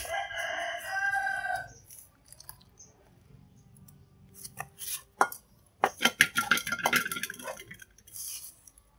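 A rooster crows for under two seconds at the start. Later a wok is tipped out into a cloth-lined plastic colander, with a cluster of knocks and clinks from the pan.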